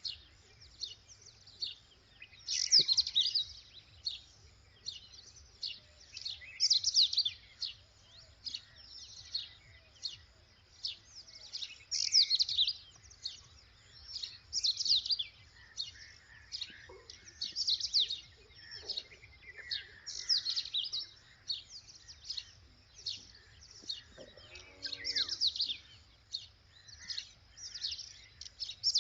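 Red-wattled lapwing calling: short, high, sharp notes in quick runs, repeated every second or two.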